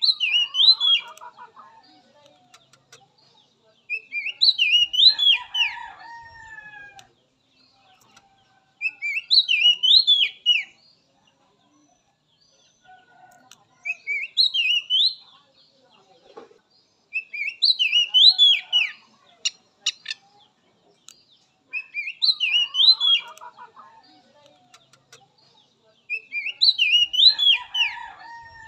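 Oriental magpie-robin (kacer) singing the same short phrase of quick rising and falling whistled notes, seven times, about every four to five seconds. A lower chattering call sounds under some of the phrases.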